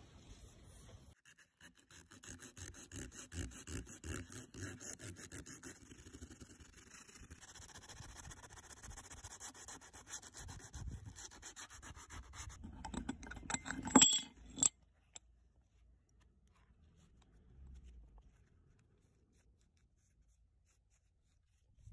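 Sandpaper rubbed by hand over a wooden board in quick back-and-forth strokes, a steady rhythmic scratching. It ends about fourteen seconds in with one sharp clack, after which the rubbing stops.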